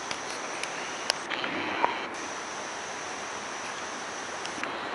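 Steady rush of a flooded river running over its banks, with insects chirring in a steady high band and a few faint clicks.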